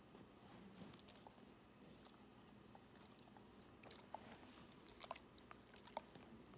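Faint wet clicks and smacks of a dog's mouth and jaws working on a cheek-swab brush being rolled inside its cheek, a handful of them, more in the second half, over near-silent room tone.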